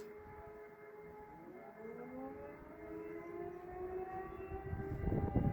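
Motor sirens sounding the fire-alarm signal as a test alarm. One siren already holds a steady pitch. About two seconds in, a second, WW2-era motor siren, which the uploader takes for an S3a, starts up with its pitch rising as it spins up, then levels off. A low rumble swells near the end.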